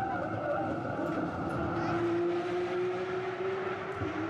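A vehicle running, with a steady whine that rises slowly in pitch over street noise and breaks off briefly near the end.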